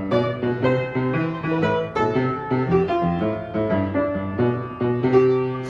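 Background music: a piano-like keyboard playing a lively run of notes.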